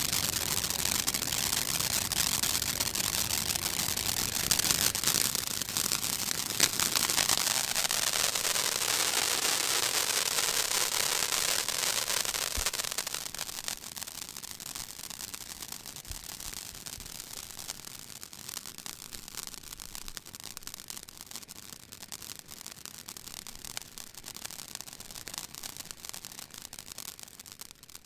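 Ground fireworks fountain hissing steadily as it sprays sparks. The hiss drops noticeably about halfway through and carries on softer.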